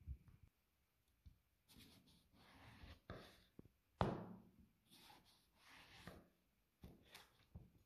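Chef's knife slicing through vegetables on a wooden cutting board: a series of quiet cutting strokes and light taps of the blade on the board, with one sharper knock about four seconds in.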